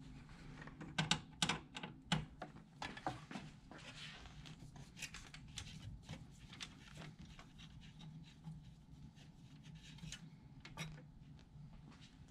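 Faint, irregular clicks and scrapes of a screwdriver working a small screw out of an HP LaserJet 4250 printer's metal frame to free the swing plate. The clicks come thickest in the first few seconds and thin out after.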